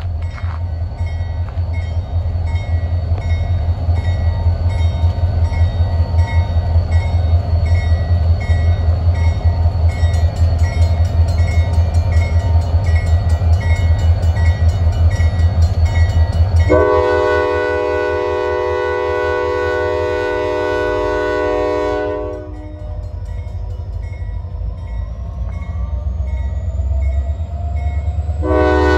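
Paducah & Louisville Railway diesel locomotive moving out: a deep, pulsing engine rumble, then its multi-note air horn sounds one long blast about two-thirds of the way in. After a pause with a rising whine, the horn starts again at the very end.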